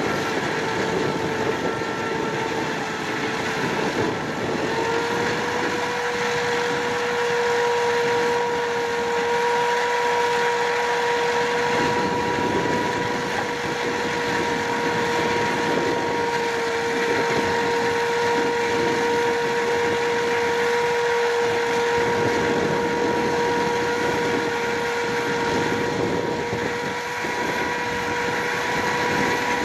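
Green John Deere tractor and the tractor-drawn pumpkin seed harvester it powers, running steadily: a continuous machine noise with a steady whine that steps up slightly in pitch about five seconds in.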